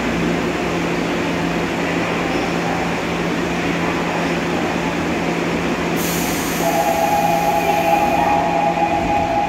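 Subway train standing at the platform, its equipment humming steadily. About six seconds in, a hiss starts, and then a steady two-tone door warning sounds for a few seconds as the doors close.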